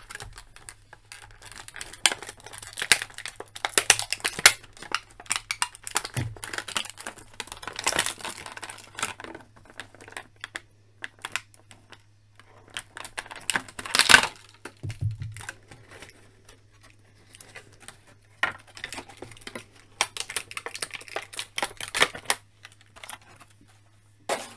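Stiff clear plastic packaging crinkling and clicking in the hands as an action figure is worked out of its blister tray and wrappings. It comes in irregular bursts with short pauses, loudest about halfway through.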